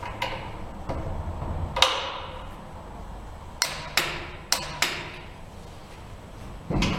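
A click-type torque wrench and other metal hand tools on motorcycle bolts: sharp metallic clicks and knocks, each with a short ring, about seven of them at uneven spacing. The loudest comes about two seconds in, and a quick cluster follows in the middle.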